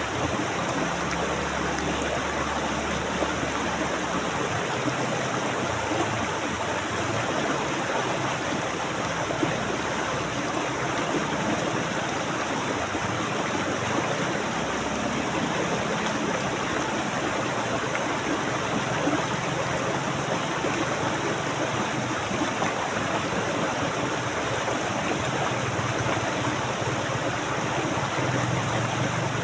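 Water flowing steadily over rocks in a stream, an even rushing and gurgling.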